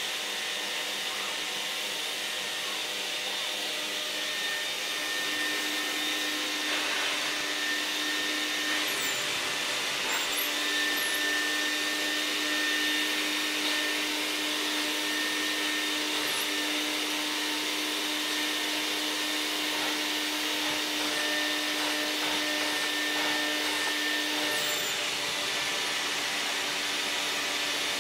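VAX 121 multifunction vacuum cleaner running steadily, a continuous motor and airflow noise with a steady low tone, getting slightly louder about five seconds in.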